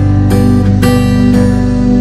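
Instrumental background music led by guitar, with chords changing about every half second.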